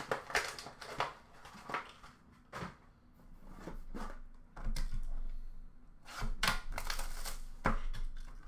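Cardboard boxes being handled: a sealed card box is pulled from an open cardboard shipping case and set down, giving a string of knocks, rustles and clicks.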